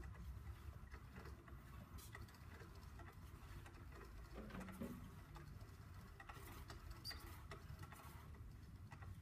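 Near silence with faint, scattered light taps and pattering from a cat playing with a toy, over a low hum.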